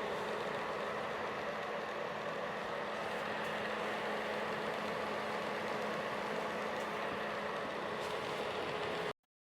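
Aikoper ceramic space heater's fan running, a steady whoosh of air with a faint hum, cutting off abruptly near the end.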